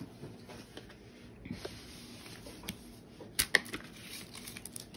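Light scattered clicks and taps of small plastic parts being handled: a diamond painting drill pen having its wax tack changed. One sharper click stands out about three and a half seconds in.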